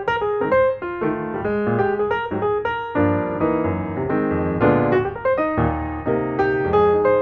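Background piano music: a quick, flowing run of notes, each struck and then fading.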